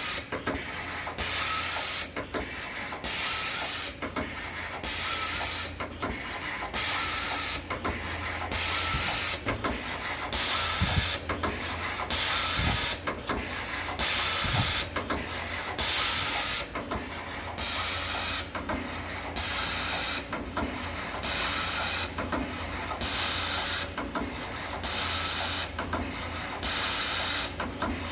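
Amada CTS-900NT CNC tapping machine running through its cycle: a short hiss of air about once a second over a steady low hum.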